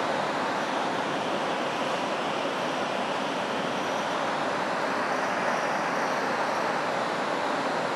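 Steady, even rushing noise with no distinct sounds in it: constant background room noise.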